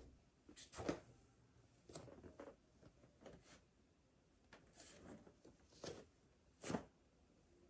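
Soft, irregular rustling of clothing and brushing contact with the floor mat as a person performs full bowing prostrations. The two strongest brushes come about a second in and near the end.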